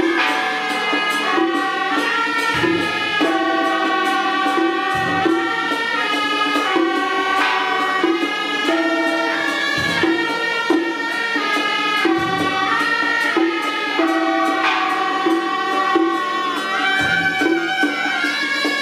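Taiwanese temple procession band playing a traditional tune: several suona (Chinese shawms) carry a loud, reedy melody together. A drum thumps about every couple of seconds, with light cymbal-like clicking over it.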